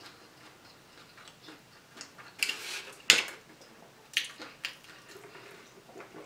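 A plastic drink cup with a straw being picked up and handled: a short rustle, then a sharp click about three seconds in (the loudest sound), followed by two smaller clicks. Soft small ticks from eating come before it.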